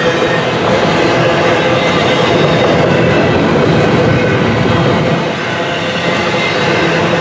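Double-stack intermodal freight train's well cars rolling past: a loud, steady rumble and rattle of steel wheels on the rails.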